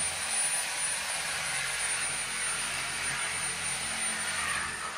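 Angle grinder running steadily, cutting through uPVC conservatory window framing.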